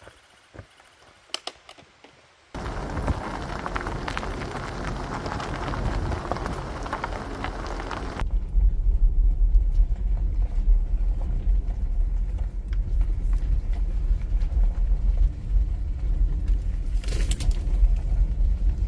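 A few soft footsteps on gravel, then from about two and a half seconds a loud, even rushing noise for about six seconds. From about eight seconds, a vehicle driving slowly over a dirt forest road, heard from inside the cab: a steady low rumble with bumps and rattles.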